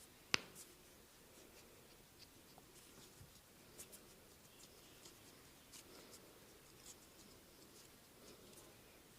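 Faint rubbing and scratching of a hand massage on skin, with scattered light ticks and one sharp click just after the start.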